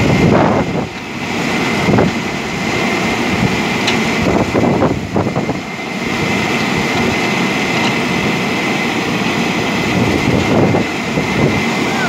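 JCB backhoe loader's diesel engine running, with a thin high whine held throughout.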